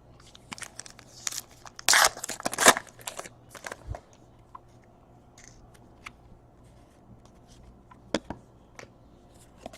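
Trading cards being handled: card stock sliding and clicking against card stock, with a brief cluster of louder scraping rustles about two seconds in, then a few light clicks.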